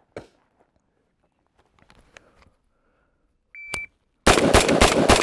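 Shot timer giving its short start beep, then about half a second later a Colt M4 carbine firing a fast string of 5.56 mm shots in quick succession, still going at the end.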